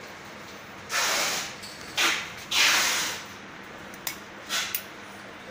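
Sheet-metal door and toggle latch of an electric sanitary napkin incinerator worked by hand. There are three short scraping rushes of metal moving against metal, then a few light clicks of the latch near the end.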